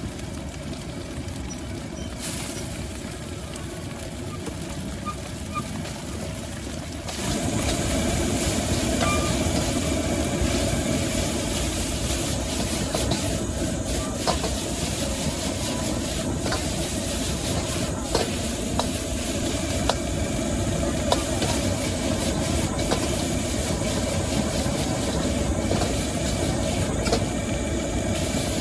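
Wok stir-frying over a gas burner: a steady burner rumble with sizzling and scattered metal clinks of the spatula on the wok. The sizzle grows louder and brighter about seven seconds in.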